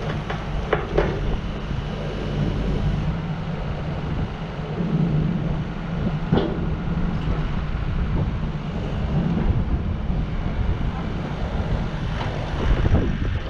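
Yanmar SV100-2A excavator's diesel engine running steadily, with wind buffeting the microphone. A few sharp knocks come through, near the start and about six seconds in.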